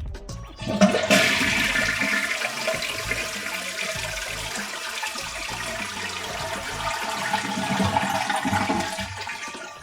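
A toilet flushing: a rush of water starts about a second in, runs steadily, and eases off near the end.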